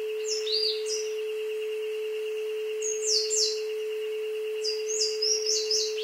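Isochronic tone track: a steady pure tone with a fainter, higher pulsing tone, over a jungle recording in which birds give quick, high, falling chirps in three short bursts.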